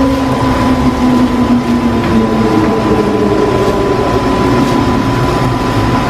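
Vegetables stir-fried in an aluminium wok over a gas burner: a steady low rumble with sizzling, and a metal spatula stirring and scraping the pan, under a constant thin high whine.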